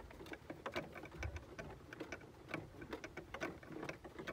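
Faint, irregular clicking and clattering from a moving donkey cart, a few light ticks a second.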